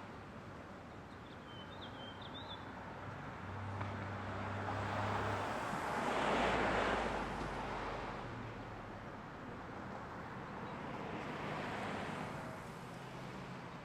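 Street traffic: cars passing, the road noise rising and fading, with the loudest pass about halfway through. A short bird chirp early on.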